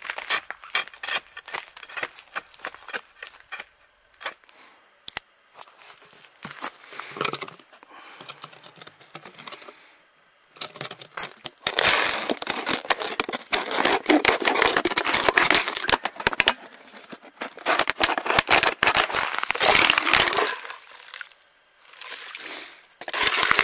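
Ice pick chopping at a frozen-over ice-fishing hole, quick sharp strikes about three a second. Then a long stretch of loud crackling and crinkling as a plastic bottle is cut into a scoop with a knife, with a short burst of it again near the end.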